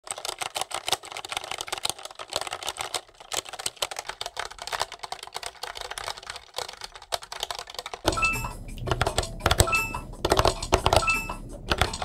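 Fast typing on a GrabShell mechanical keyboard, the keys clacking in quick runs. About eight seconds in, the typing turns louder and heavier, with short beeps roughly once a second.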